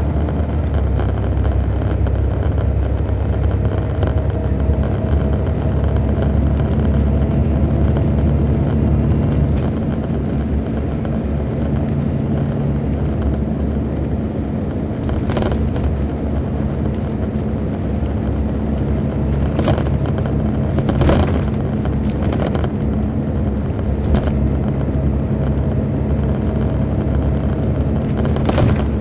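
Detroit Diesel Series 60 diesel engine of a 2002 MCI D4000 coach running steadily under way, heard inside the cabin from the rear seats. Sharp knocks come through several times in the second half.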